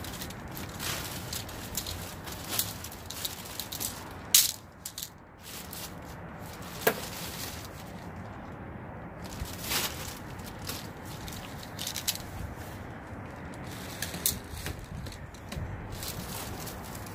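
Objects being handled and rummaged through: rustling and rattling with scattered sharp knocks and clicks, the loudest about four seconds in.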